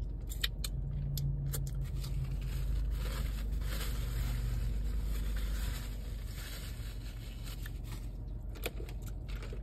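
Brown paper napkin rustling and crinkling against the mouth, strongest in the middle, after a few light clicks of a fork in a cardboard takeout box. A steady low hum runs underneath.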